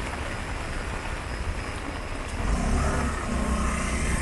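Rainy street ambience with a steady hiss throughout; about halfway through, a motor vehicle's engine comes close and its low rumble grows louder.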